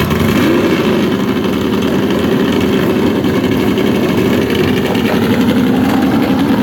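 Loud drag-racing car engine idling steadily with a pulsing beat.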